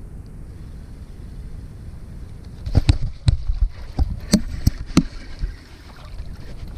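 Steady low wind rumble on the microphone, then, as a fish is hooked, a quick run of about eight sharp knocks and clicks over two to three seconds: the spinning reel and gloved hand bumping and rubbing against the loosely strapped chest-mounted camera.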